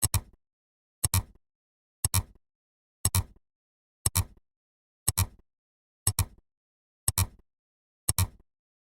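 A short, sharp double-click sound effect repeats about once a second, nine times in all, with silence between the clicks.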